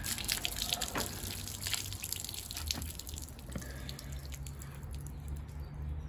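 Residual water pouring and splashing out of a Beko washing machine's drain filter housing onto the ground as the filter plug is unscrewed, then dripping.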